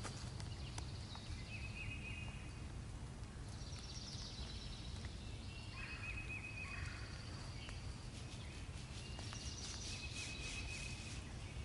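Songbirds singing in the woods, several short high-pitched phrases and trills following one another throughout, over a low steady rumble.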